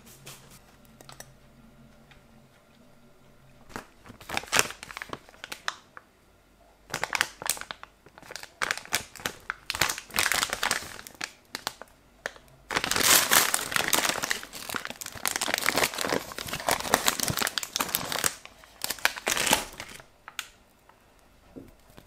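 Plastic candy bag crinkling in irregular bursts as it is handled and torn open, busiest in the middle and dying away near the end.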